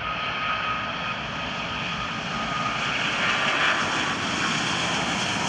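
Airbus A380's four Rolls-Royce Trent 900 turbofans at takeoff thrust: a steady jet engine noise that grows a little louder about three seconds in.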